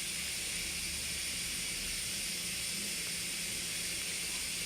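Steady background hiss, strongest in the high range, with no distinct sound event.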